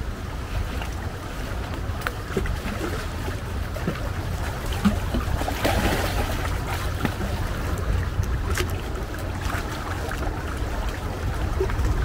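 Steady low rumble of wind buffeting the camera's microphone, with a few light ticks of footsteps on a forest path and a brief swell of rushing noise about halfway through.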